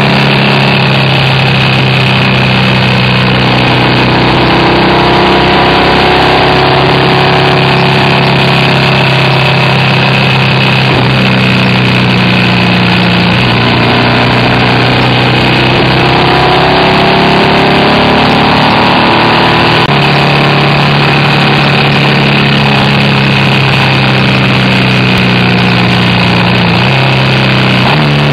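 BMW R1200RT's boxer twin engine running at road speed over a steady rush of wind and road noise, its note stepping up and down a few times as the rider works through the bends.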